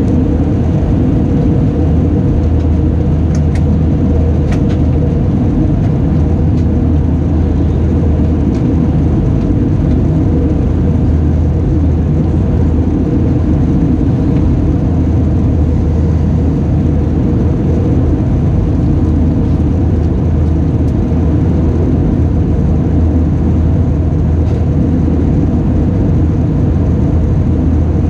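Airbus A320 cabin noise in flight: the jet engines and rushing air make a loud, steady, deep drone with a constant low hum, heard inside the cabin.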